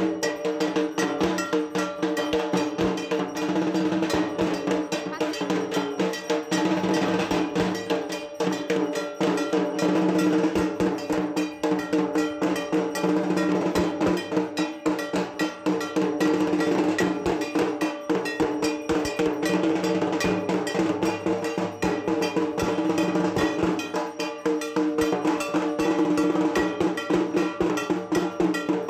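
A bell-metal gong (kansar) struck rapidly and continuously, giving a dense, even metallic clanging with a steady ringing tone under it.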